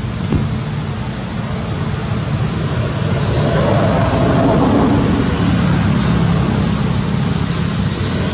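Steady motor vehicle engine noise with a low hum, swelling a little in the middle as if a vehicle passes.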